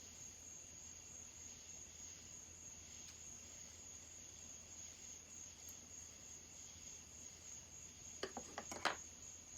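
Faint steady high-pitched chirring of crickets, with a few light clicks near the end.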